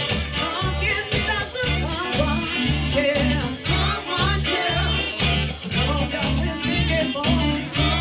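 Live funk-soul band playing, with a woman singing over electric guitar, saxophones and drums, and heavy bass notes pulsing about twice a second.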